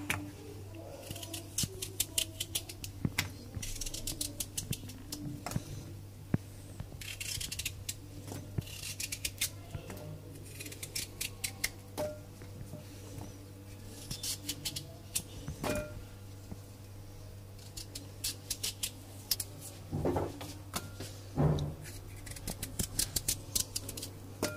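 A knife slicing through a raw peeled potato held in the hand, making bursts of quick, crisp clicks separated by short pauses. Near the end come two duller knocks.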